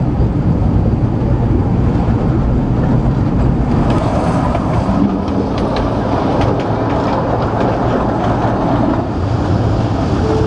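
Kurobe Gorge Railway narrow-gauge train running, heard from its open-sided carriage: a steady rumble of wheels on rail, with a run of sharp clicks and faint high squeals from about four seconds in.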